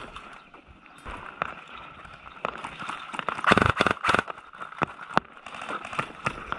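Airsoft guns firing irregular single shots, each a short sharp crack, with a quick run of louder shots about three and a half seconds in.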